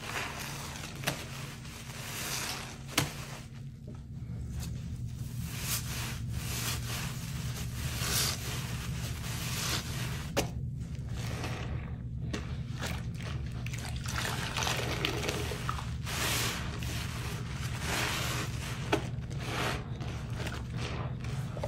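A soaked, soapy sponge squeezed and wrung by hand over a metal basin: wet squelching and crackling foam, with water trickling and pouring back into the basin.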